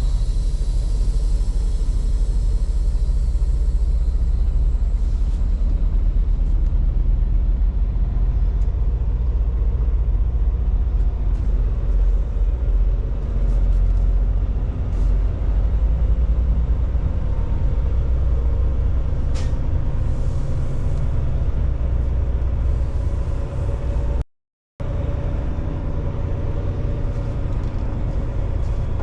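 Semi-truck's diesel engine running with a steady low rumble as the tractor-trailer moves slowly. The sound cuts out completely for about half a second near the end.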